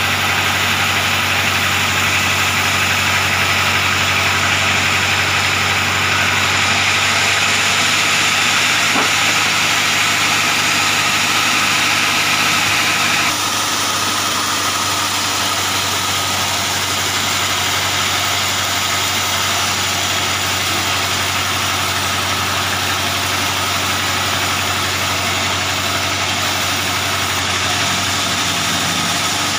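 Large vertical band sawmill running, its drive humming steadily while the blade rips a timber beam lengthwise for door-frame stock. About thirteen seconds in, the sound drops a little and changes abruptly.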